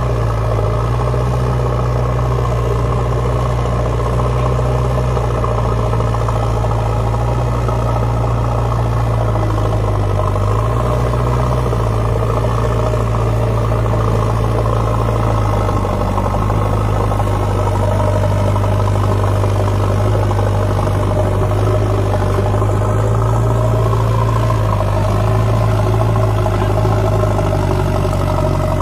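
JCB backhoe loader's diesel engine running steadily, loud and even, with small shifts in engine speed as the backhoe arm works to lever the machine in the sand.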